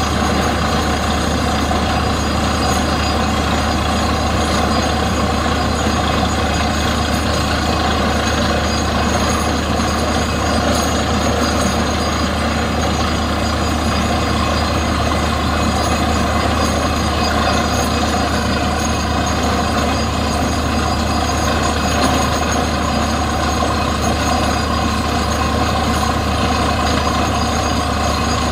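Truck-mounted borewell drilling rig running steadily while drilling: a loud, constant drone of its engine and air compressor, with the noise of the drill working in the hole and no change through the stretch.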